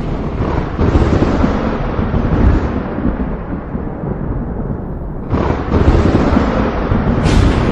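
Thunder rolling in long, deep rumbles, with a fresh crack setting off a new roll about five seconds in and another sharp crack near the end.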